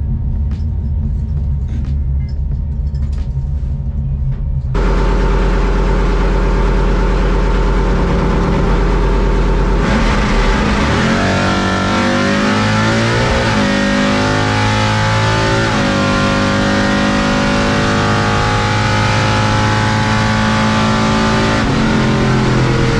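Drag race car's engine heard from inside the car: it idles for the first few seconds, then suddenly gets much louder about five seconds in. From about ten seconds it runs at full throttle down the strip, its pitch climbing and dropping back at gear changes.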